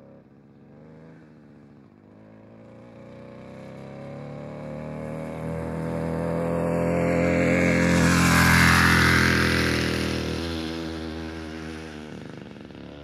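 Soloed library recording of a moped's small engine passing by. It grows steadily louder to a peak about two-thirds of the way through, then fades away.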